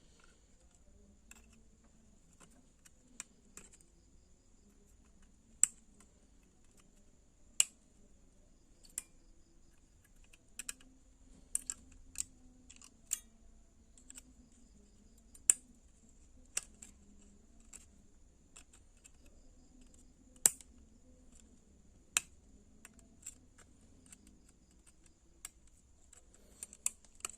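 Scattered sharp clicks and small snaps of hand work on small parts, with long quiet gaps between them, as the wire leads of an energy-saving bulb's glass tube are unhooked from its driver board.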